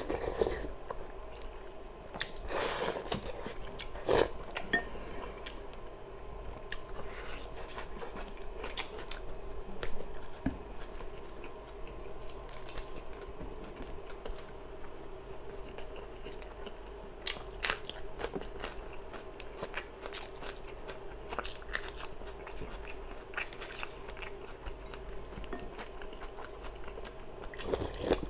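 A person eating close to the microphone: chewing and biting into food, with borscht taken from a wooden spoon and scattered short clicks and knocks throughout.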